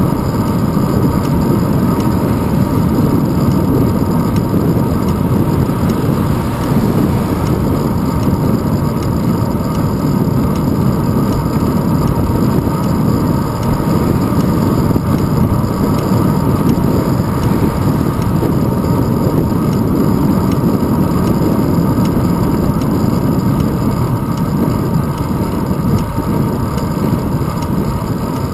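Steady wind buffeting and road rumble on the microphone of a handlebar-mounted GoPro Hero 2 as a bicycle rides along a paved road. The noise is a loud, low rushing that flutters without letup.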